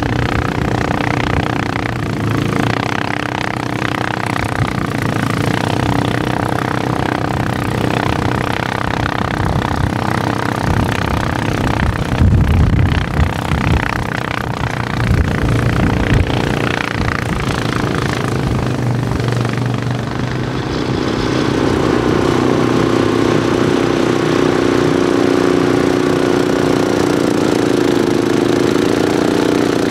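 Suzuki King Quad 700 ATV on tracks, together with the small gas engine of its front-mounted snowblower, running steadily under load while clearing snow. The engine sound gets louder and closer about two-thirds of the way through.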